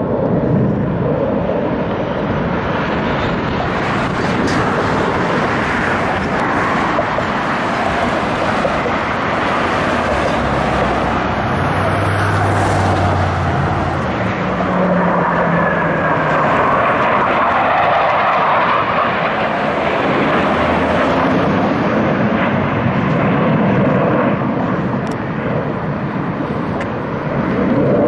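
Jet noise from U.S. Navy Blue Angels F/A-18 Hornets flying over, a loud continuous rush that swells several times as the jets pass.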